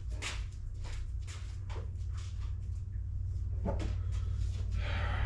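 Short clicks, clinks and rustles of metal workpieces and drive dogs being handled and set down, over a steady low hum.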